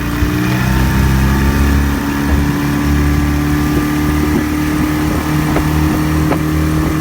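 A boat engine running steadily on a low note that rises slightly in the first second, with a few faint clicks over it.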